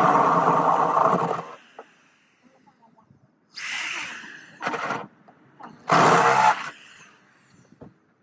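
A power drill running loudly for about a second, stopping, then spinning up again in three short trigger bursts.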